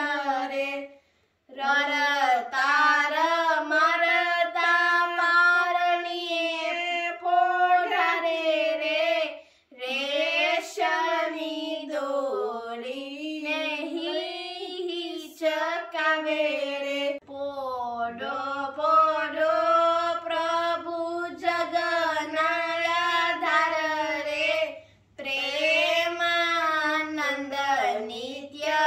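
A girl singing a Swaminarayan kirtan (Gujarati devotional song) unaccompanied, in long melodic phrases with three short breaks for breath.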